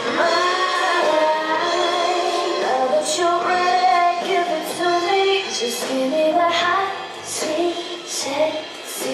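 A song sung by a woman over musical accompaniment.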